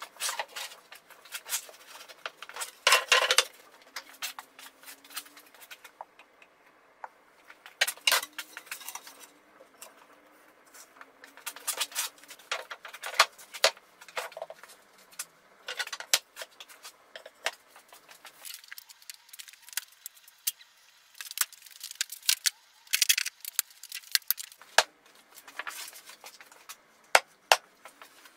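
Plywood panels and strips being handled and laid on a metal table saw top, with irregular sharp knocks and clatters of wood on wood and metal; later, bricks being set down on the boards with hard knocks.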